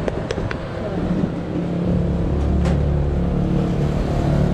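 A motor vehicle engine running steadily close by, a low hum that grows louder about two seconds in. A few light clicks near the start come from a knife working a durian's spiky husk.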